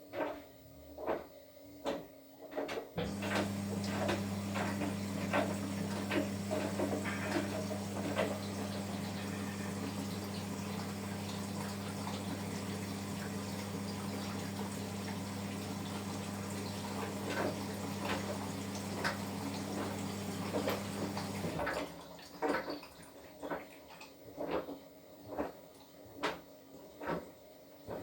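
Washing machine mid-cycle: a regular knock about every three-quarters of a second as the drum turns. From about three seconds in until just before the end, a steady hum runs with rushing water, then stops suddenly.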